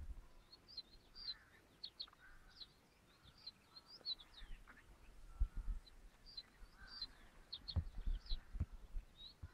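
Small birds chirping over and over, short quick downward-sweeping notes, faint against a quiet outdoor background. A few dull low thumps come in the second half, the loudest near the end.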